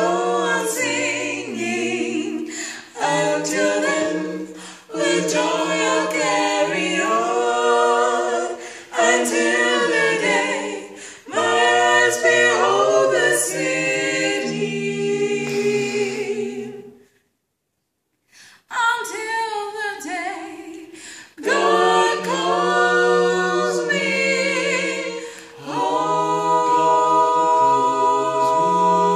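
Mixed vocal quartet of two men and two women singing a gospel hymn a cappella in close harmony. The sound cuts out completely for about a second and a half just past halfway, and the singing closes on a long held chord near the end.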